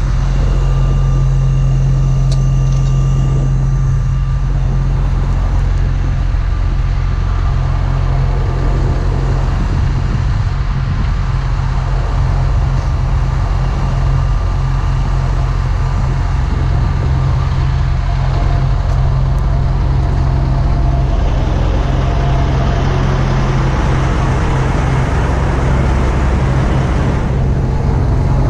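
Big diesel truck engine running steadily, a deep constant drone with no change in speed.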